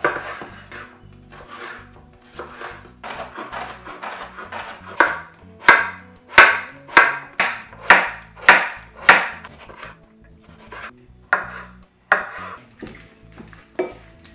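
Chef's knife cutting vegetables on a bamboo cutting board, with a steady run of about eight even chops, about one every half second, in the middle as cucumber is sliced, and a few scattered cuts around it. Faint background music plays under it.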